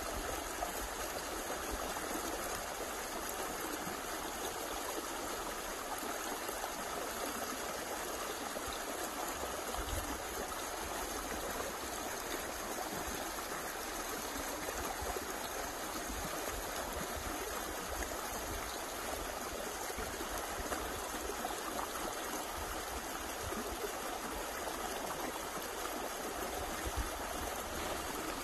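Small woodland stream running and splashing over a little step in its stony bed, a steady rush of water with no let-up.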